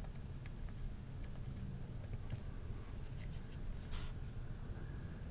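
Faint scratching and light ticks of a cotton swab with rubbing alcohol scrubbing the crossbar lock of a Bestech Ronan folding knife, with one longer scrape about four seconds in.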